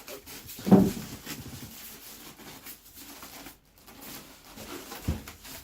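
A computer case and its foam packing being handled: a sharp thump less than a second in as the case is set down or turned over, then rustling and scraping, with a softer knock near the end.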